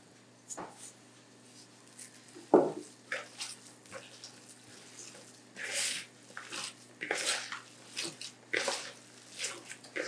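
Bare hands kneading raw minced meat for lula kebab in a plastic bowl: irregular wet squelches that come thicker in the second half, with one louder squish about two and a half seconds in.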